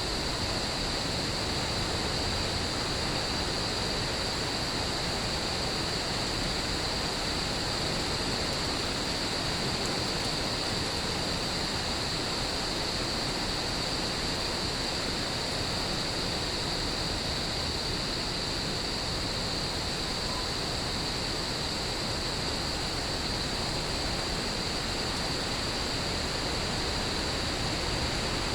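Steady rain hiss under a continuous, unbroken high chorus of crickets. It runs evenly throughout, with no thunder claps.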